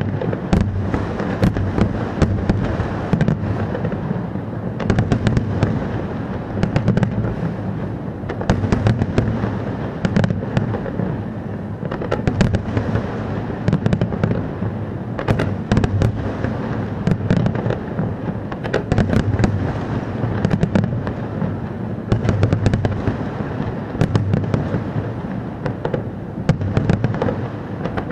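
A fireworks display going off without pause: dense sharp cracks and crackling over a steady low rumble of bursts.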